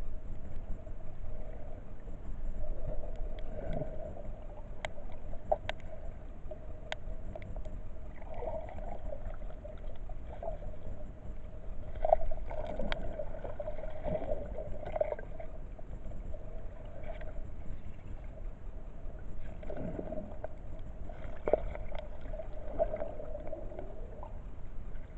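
Muffled underwater sound picked up by a submerged camera: a steady hum over a low rumble, with scattered sharp clicks and a few short swishes of movement in the water.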